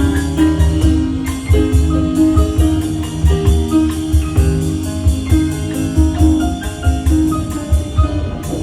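Piano played four hands, an upbeat pop tune with a steady drum beat under it.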